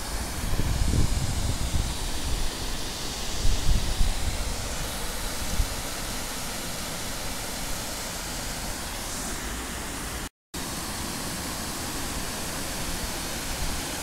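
Steady rush of water pouring over a stone weir into a rocky stream, with uneven low rumbling on the microphone in the first few seconds. The sound cuts out for an instant about ten seconds in.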